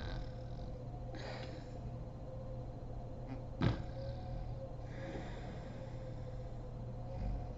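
A sleeping woman breathing heavily through her nose and mouth, with one short, sharp snort about halfway through, over a steady background hum.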